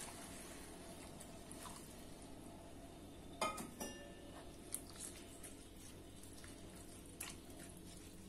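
Coconut milk poured into a stainless steel pot of rice and vegetables, giving faint liquid sounds, with a few light clicks from the pot.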